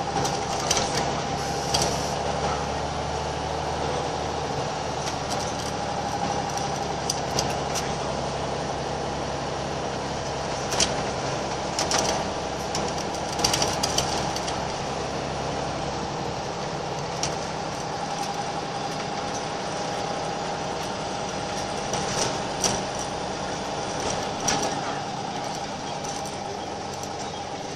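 Scania L94UB bus's rear-mounted diesel engine running steadily, heard from inside the passenger saloon, with scattered sharp rattles and clicks from the bus interior.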